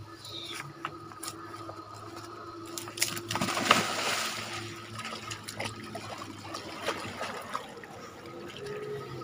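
Water buffalo sloshing and splashing in shallow river water, with one loud splash about three and a half seconds in as a calf plunges in. A faint steady low hum runs underneath.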